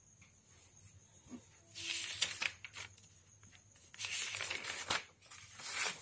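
Paper pages of a notebook being turned over by hand: three bursts of paper rustling, about two seconds in, about four seconds in, and again near the end.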